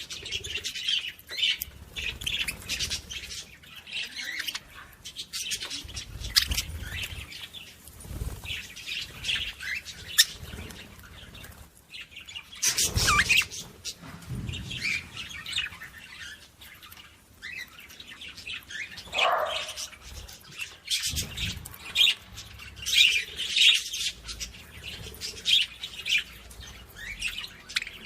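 Small birds chirping and tweeting, many short high calls overlapping throughout, with a few low thumps and a louder burst of sound about halfway through.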